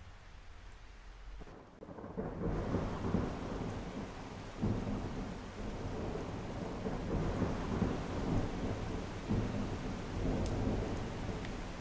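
Heavy rain falling in a forest, dense and steady with a deep rumble underneath that swells and ebbs. It comes in suddenly about two seconds in, after a quieter low hum.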